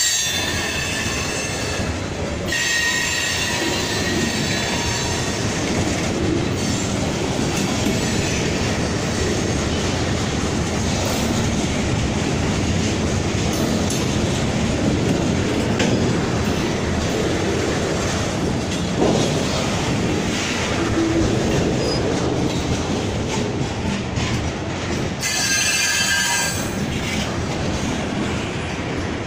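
Freight train of boxcars and centerbeam lumber flatcars rolling past: a steady rumble of wheels on rail. A high wheel squeal rings out for the first couple of seconds and again about 25 seconds in.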